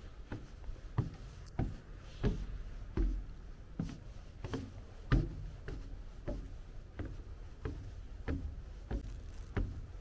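Footsteps of a person walking at a steady pace, about three steps every two seconds.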